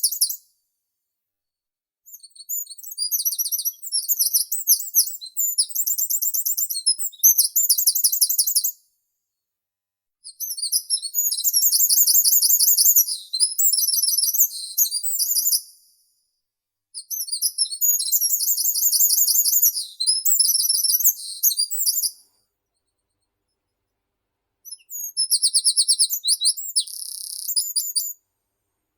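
A meadow songbird singing long, high-pitched songs made of rapid runs of repeated notes. There are four songs of about four to six seconds each, with short silent pauses between them.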